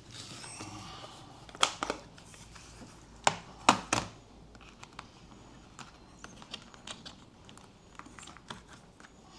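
Rummaging through a set of small screwdrivers and bits: rustling, then sharp clicks and clacks of small hard tools being handled, loudest in the first four seconds and lighter, scattered ticks after.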